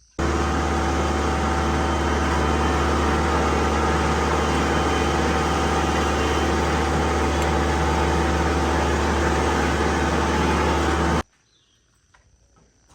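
An engine running steadily at constant speed, a loud, even hum that starts abruptly just after the start and cuts off suddenly about eleven seconds in.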